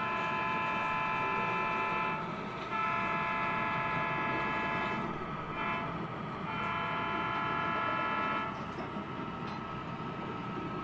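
HO scale model diesel locomotive's sound-decoder air horn sounding the grade-crossing signal: two long blasts, a short one, and a final long one. Under it runs the steady sound of the model locomotive.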